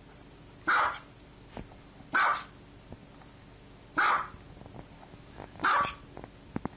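Small white dog barking: four short barks, evenly spaced about one and a half to two seconds apart.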